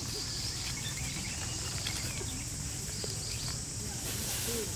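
Steady high-pitched insect drone over a constant low rumble, with a brief faint squeak near the end.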